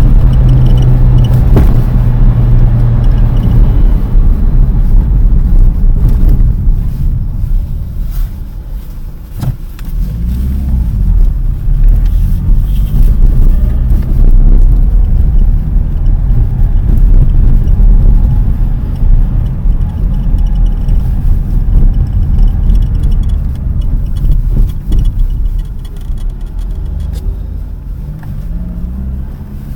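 2007 Lada Priora sedan on the move, engine and road rumble loud and steady, with faint short creaks recurring from the right bonnet hinge. The owner puts the squeak down to the body flexing and thinks a brace between the strut towers would probably stop it.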